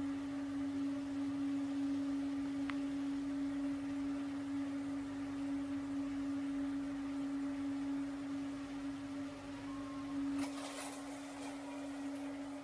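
A steady electronic hum: one held, even-pitched tone with a fainter overtone above it. There is a faint click between two and three seconds in, and a faint scratchy rustle about ten seconds in.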